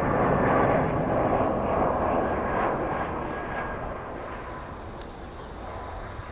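Airbus A320 airliner's jet engines on the landing approach, a rushing noise with a faint steady whine, loudest about half a second in and then gradually fading as the aircraft passes and descends toward the runway.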